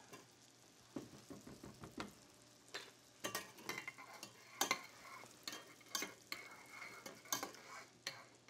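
Metal spoon stirring a pan sauce in a small stainless steel saucepan, with irregular clinks and scrapes against the pan that come more often from about three seconds in, over a faint sizzle from the hot pans.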